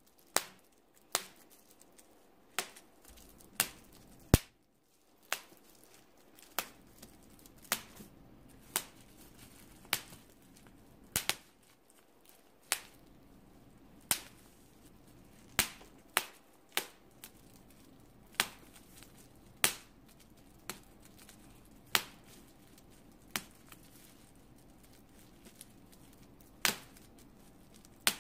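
Bubble wrap popped by hand one bubble at a time: sharp single pops at irregular gaps of about a second, now and then two close together.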